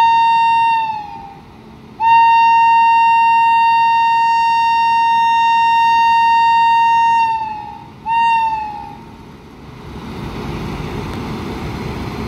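Indian Railways electric locomotive air horn sounding three blasts, short, long and short, each sagging in pitch as it dies away. After the last blast comes the steady low rumble of a moving goods train.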